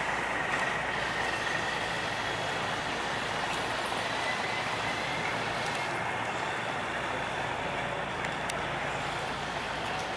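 Diesel engines of barges and small boats running together in a steady drone.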